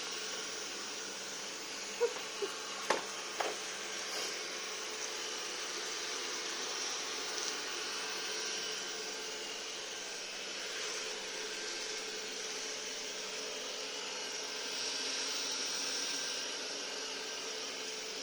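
Robot vacuum cleaner running with a steady motor whirr and hiss. A few light knocks sound about two to three and a half seconds in.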